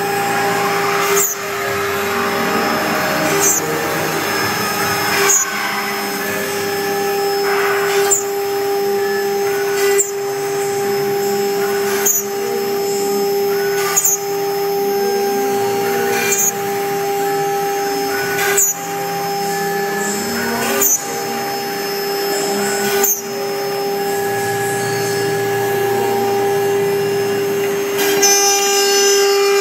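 Multi-spindle CNC router running, its spindles holding a steady high whine while the bits cut into a wooden speaker board with a rasping chip noise. A short sharp click comes roughly every two seconds.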